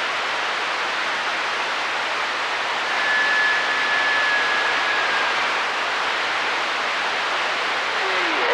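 CB radio receiver hiss and static on an open channel between transmissions. A faint steady whistle from a carrier comes in about three seconds in and lasts a couple of seconds.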